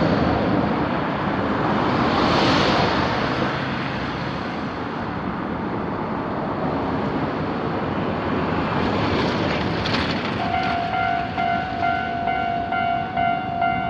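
Road traffic passes a railway level crossing, one vehicle swelling past early on. About ten seconds in, the crossing's electronic warning bell starts ringing, a repeated clanging tone that signals a train is approaching.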